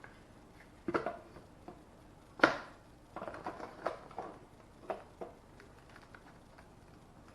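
Scattered knocks, taps and clatter of small hard objects being handled and set down, the loudest knock about two and a half seconds in, followed by a run of lighter taps.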